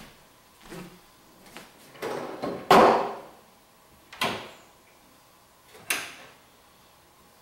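Wooden lid and doors of an upright wind-up phonograph cabinet being opened by hand: a series of wooden knocks, clicks and rubbing, the loudest knock about three seconds in as the lid is raised, then sharper clicks from the door latch and hinges a little after four and six seconds.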